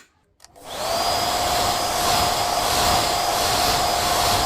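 A small electric motor running steadily with a constant whine, starting about half a second in.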